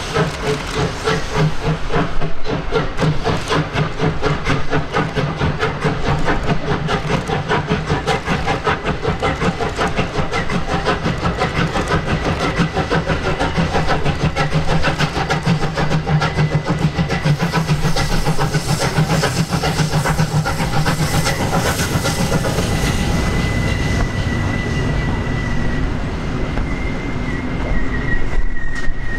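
Steam locomotive 58 311, a Prussian G 12 2-10-0, working hard with a train: a fast, even beat of exhaust chuffs that grows loudest near the end as it passes close by. A faint steady high tone joins in during the last third.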